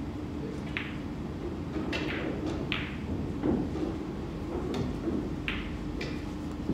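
Pool balls clicking several times at irregular intervals over a steady room hum, the loudest knock about halfway through.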